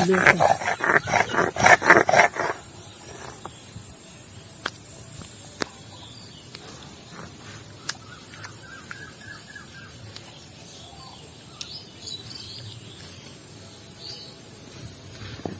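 Onion being ground to a paste on a stone grinding slab: rhythmic scraping strokes, about three or four a second, that stop about two seconds in. A steady high insect drone follows, with a few faint bird chirps.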